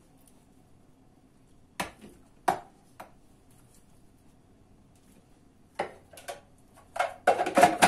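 A metal ladle clinking and knocking against bowls as chopped tomatoes are scooped into a food processor: a few single clinks spaced out, then a quicker run of knocks near the end.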